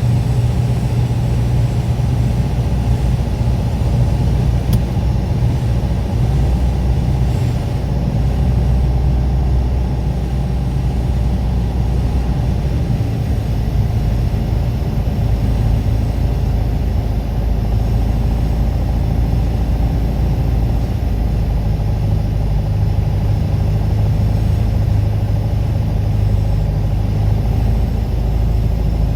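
Piper PA-28 light aircraft's piston engine and propeller running steadily, the engine note shifting slightly partway through.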